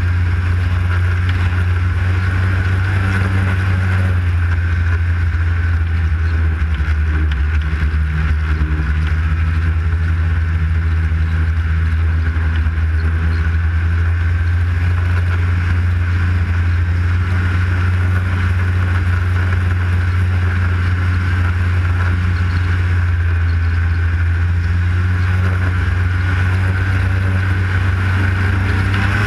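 Arctic Cat snowmobile engine running at a steady cruising speed, a constant low drone that holds even throughout.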